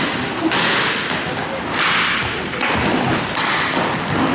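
Roller hockey play in a sports hall: inline skate wheels scraping on the court in repeated strides, with thuds and knocks from sticks and the ball.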